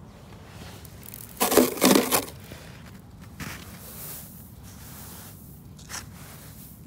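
Quiet handling noises: light scraping and a few soft knocks, with a louder scrape for under a second about a second and a half in.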